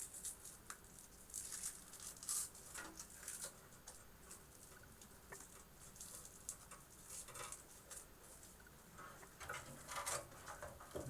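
Faint, scattered rustling and light clicking of computer power supply cables being bent, bundled and tucked into the server case by hand.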